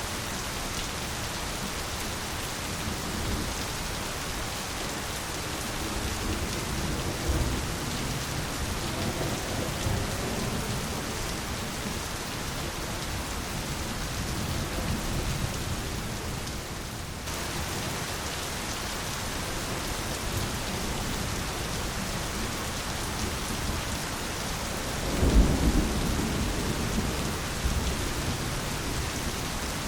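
Steady heavy rain with thunder rumbling low in the background, swelling a few times and loudest about 25 seconds in.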